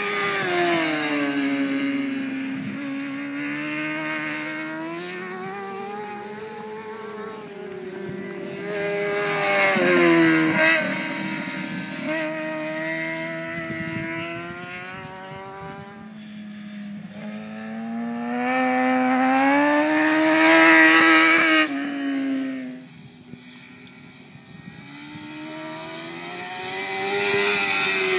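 Sport motorcycles lapping a racetrack, their engines revving up through the gears and dropping in pitch at each shift as they pass. The bikes come loudest about ten seconds in, around twenty seconds in and near the end, with a quieter lull between the last two passes.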